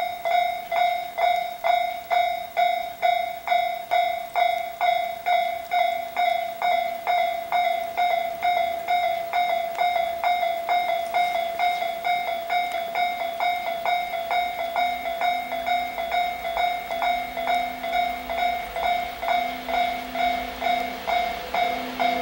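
Railway level-crossing alarm ringing: an even clang about twice a second, each strike dying away. In the last third a low hum and rumble from the approaching EF64 electric locomotives rises underneath.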